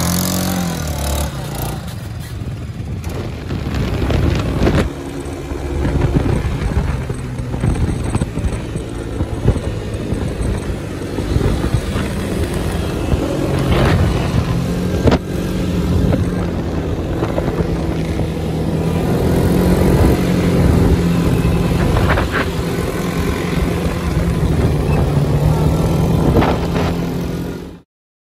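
Quad bike (ATV) engines running as they ride, rising and falling in loudness, with a few sharp knocks. The sound cuts off suddenly just before the end.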